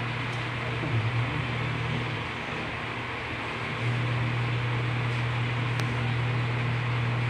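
Steady mechanical hum over a hiss. A low drone drops away, returns briefly about a second in, and comes back steadily about four seconds in.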